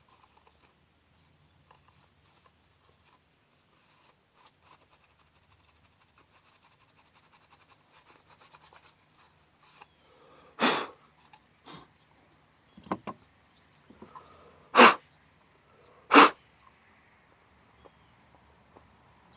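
Short, sharp puffs of breath blown onto the ATV display housing to clear dust, a few scattered through the second half, with the loudest three near the end.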